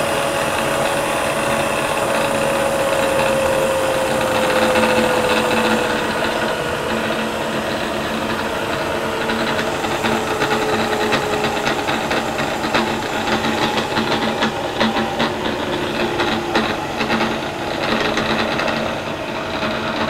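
Variable-speed Bridgeport milling machine head running, its whine slowly falling in pitch as the spindle speed is cranked down, over a steady hum. An uneven rattle grows through the second half; the drive is not quite smooth in there.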